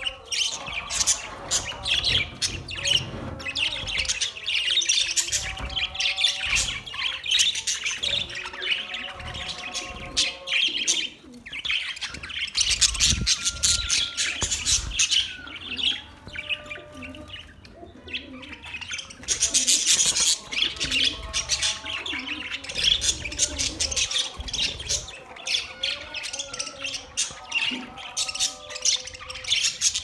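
A flock of budgerigars chirping and chattering all at once, with many overlapping calls that ease off briefly about a third of the way in and again past the middle.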